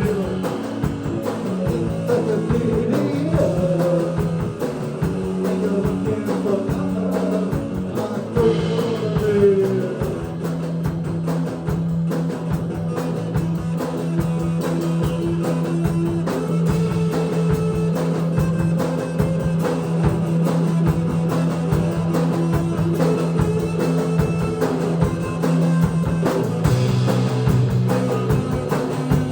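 Live rock trio of electric guitar, bass guitar and drum kit playing a mostly instrumental passage, with a bending lead line in the first ten seconds over a steady bass and drum rhythm.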